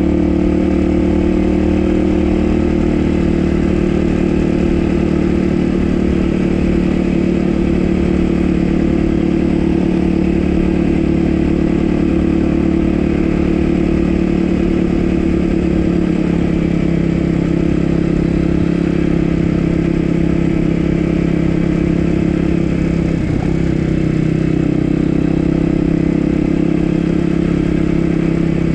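Dirt bike engine running steadily under way, its pitch settling slightly lower about halfway through and dipping briefly once near the end.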